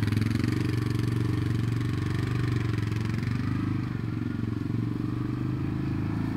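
ATV (four-wheeler) engine running steadily.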